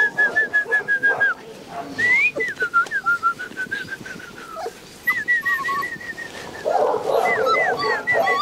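Young Rottweiler puppies whining in high-pitched squeals, in quick runs of short squeals. There is a longer drawn-out whine in the middle and rougher yips near the end.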